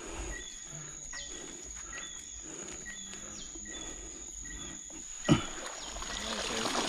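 Night insects calling: a steady high-pitched trill with short chirps repeating. A sharp knock comes a little over five seconds in, then rustling handling noise near the end.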